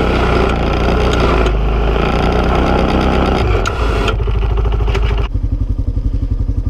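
Honda Foreman 450 ATV's single-cylinder four-stroke engine running hard under the load of a snow plow, then dropping back to a slow, evenly pulsing idle from about five seconds in.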